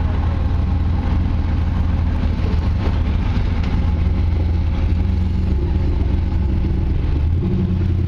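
Rock-crawler buggy's engine running under load as it climbs a rock ledge, a steady low drone whose revs rise near the end.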